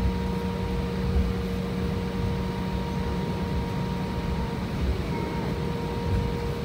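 Cabin noise of an Embraer 170 jet taxiing: its GE CF34 turbofan engines at idle make a steady hum with a few fixed tones over a low rumble.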